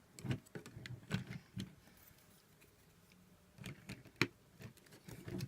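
Light plastic clicks and taps of Lego bricks and minifigures being handled, a few scattered knocks with short pauses between them.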